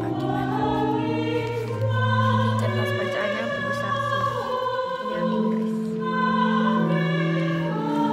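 Choral music: several voices holding long, overlapping notes that change roughly every second or two.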